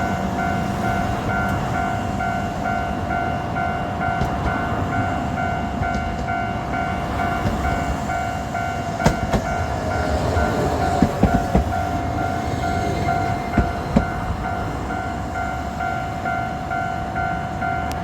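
A level-crossing alarm rings in a steady, pulsing pattern while Kagoshima City Tram car 1017 rumbles through the crossing. The wheels give several sharp knocks over the rail joints about halfway through.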